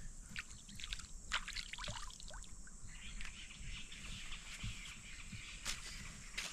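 Outdoor riverbank ambience: birds chirping in short, quick falling calls, over a steady high insect drone, with a few sharp clicks near the end.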